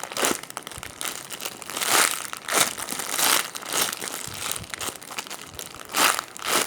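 Crinkling and rustling in irregular swells as a squishy foam toy is squeezed and handled close to the microphone.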